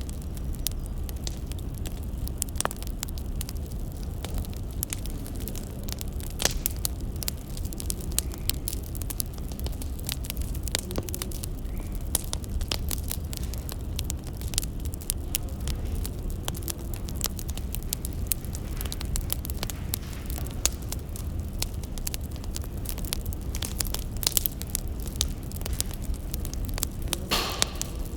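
Wood fire crackling: irregular sharp pops and snaps over a steady low rumble, with a longer hissing flare near the end.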